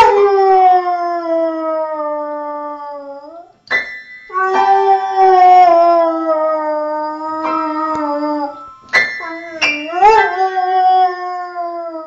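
A beagle howling in three long, drawn-out howls that slide down in pitch, the last one swooping up and back down about ten seconds in. Its front paws press the keys of an upright piano, sounding jangling clusters of notes between and under the howls.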